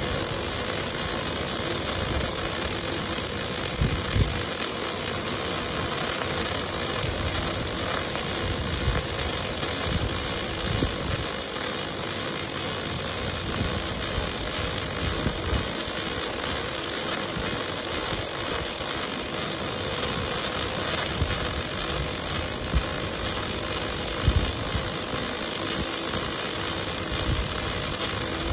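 Steady industrial machine noise from a welding robot cell, a constant hiss with a few scattered low knocks.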